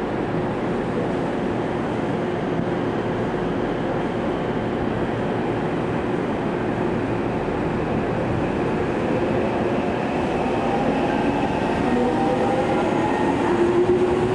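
Electric commuter train pulling away on the next track, its traction motors whining with rising pitch from about halfway through. Under it runs a steady hum.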